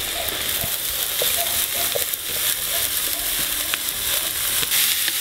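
Squeezed sauerkraut sizzling as it is tipped into hot oil with frying onions in a cast-iron kazan. It is a dense hiss with scattered small pops, growing louder toward the end.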